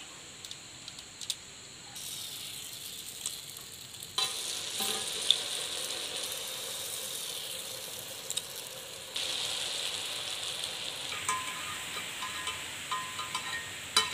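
Rose-cookie batter deep-frying in hot oil: a steady sizzle whose level jumps abruptly a few times, with a few short clicks of the metal rose mould.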